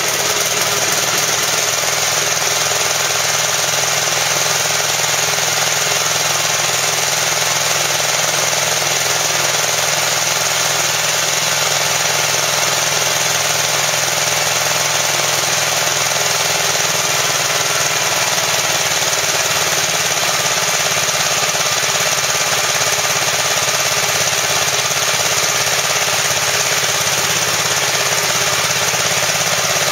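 Gravely L series walk-behind tractor's 7.6 hp single-cylinder engine running steadily with a rapid, pounding chug.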